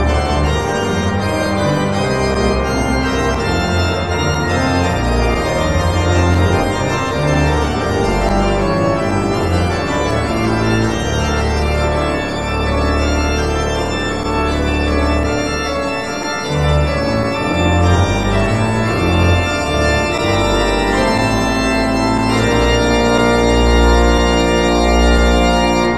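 Organ music: sustained chords over a bass line that moves to a new note every second or two.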